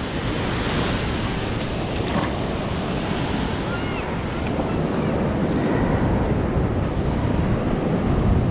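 Surf washing in over the shallows, a steady rush of breaking foam that swells a little louder partway through, with wind buffeting the microphone.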